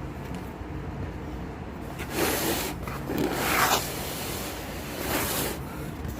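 Plastic laptop bottom case being pried and scraped at, in three short rubbing strokes about two, three and five seconds in, over a steady low hum.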